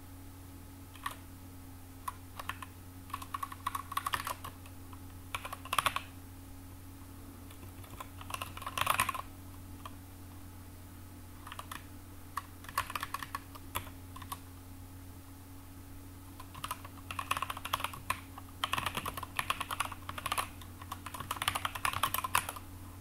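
Typing on a computer keyboard: bursts of rapid keystrokes with short pauses between them, over a steady low hum.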